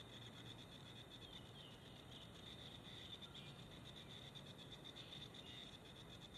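Near silence: faint outdoor ambience, with a steady high-pitched hum and a few faint, short rising chirps.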